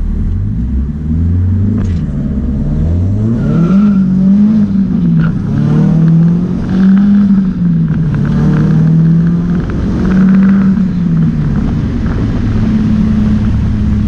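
Turbocharged 2.4-litre KA24DET four-cylinder heard from inside the car, accelerating hard: the engine note climbs and drops back several times as it is run up through the gears, then holds steady near the end.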